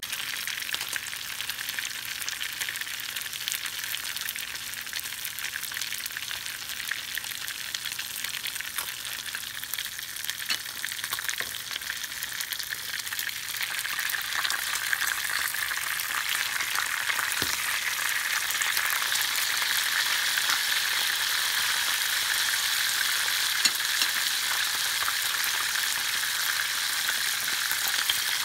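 Lingcod fillets sizzling and crackling in hot oil in a frying pan: a dense, steady crackle that grows louder about halfway through as the pieces are turned with tongs.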